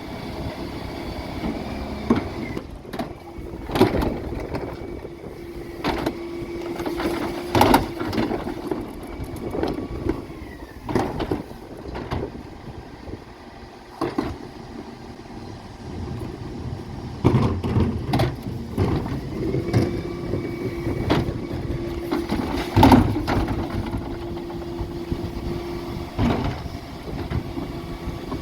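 Refuse truck at work: engine and hydraulics running with a steady whine while the bin lift cycles twice, and wheelie bins knock and bang as they are lifted, tipped and set down.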